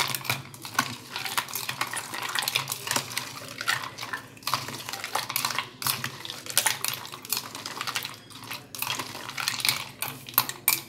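Metal spoon stirring ice cubes and lime in a disposable plastic cup, with quick, irregular clinks and rattles of ice against spoon and cup.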